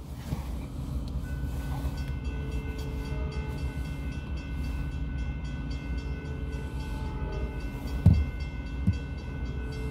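Train approaching a grade crossing: a steady low rumble, with a held multi-note horn tone that comes in about a second in and keeps sounding. Two short thumps near the end, the first of them the loudest sound.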